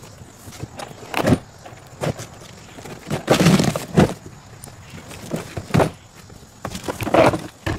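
Large cardboard mower box being handled and tipped up on end on a concrete driveway: a handful of irregular cardboard scrapes and thumps, the longest scrape a little after three seconds in and another strong one near the end.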